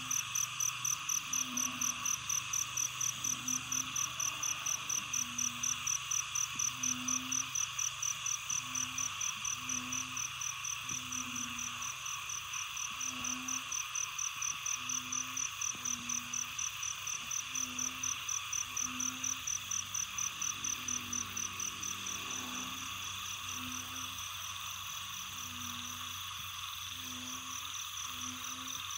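Night chorus of insects: a steady high-pitched trill pulsing about three times a second over a continuous buzz. Under it a frog calls with short, low notes about once a second.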